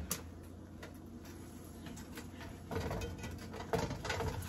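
A spatula scraping and lifting under a quesadilla in a nonstick frying pan, two short bouts of scraping about three and four seconds in, over a faint low steady hum.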